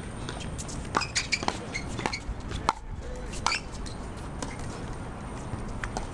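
Pickleball paddles striking the plastic ball, with the ball bouncing on the hard court, during a rally: a quick run of sharp pops and taps, most of them between about one and four seconds in.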